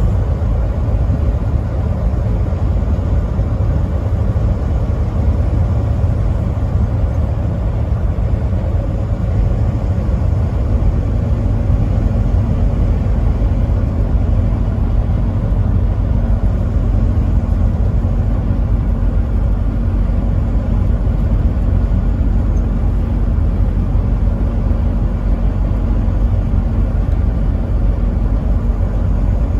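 Truck driving at steady speed: a continuous low engine and road rumble that does not change, with no horn.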